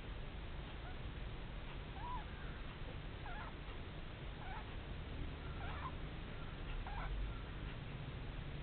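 A sleeping pet snoring: a low rumble with a short squeaky nasal whistle about every second and a quarter.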